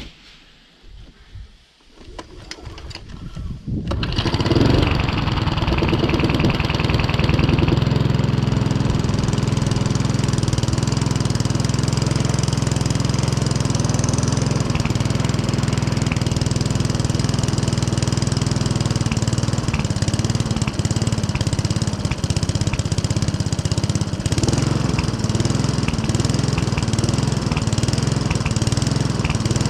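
Mountfield 474 SP petrol lawnmower engine being pull-started: it catches about two to four seconds in and settles into a steady run. It runs with a slight hunt, which the owner puts down to a carburettor needing a clean.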